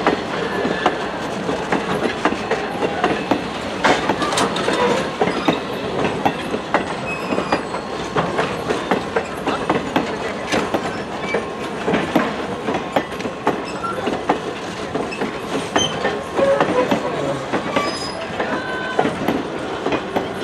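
Passenger coaches rolling slowly past on steel rails, their wheels clicking and clacking irregularly over the rail joints, with a few brief high squeaks from the wheels.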